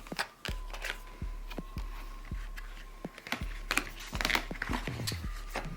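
Irregular light clicks and taps of a CD album's card and plastic packaging being handled and turned over.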